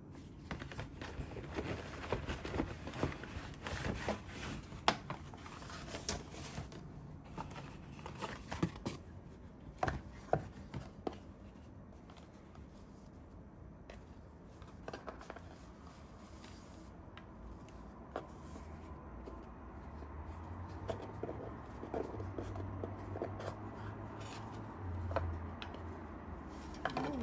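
Paper and cardboard gift packaging being handled: dense crisp rustles and clicks as a card envelope and paper shopping bag are handled, then sparser soft rubs and taps as a satin ribbon is untied and a small cardboard jewellery box is opened. A low steady hum sits underneath in the second half.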